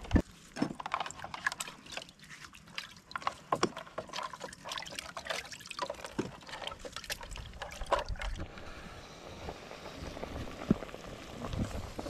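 Water splashing and sloshing in a basin as potatoes are washed by hand, in irregular splashes; the splashing thins out about eight seconds in, leaving a quieter steady hiss.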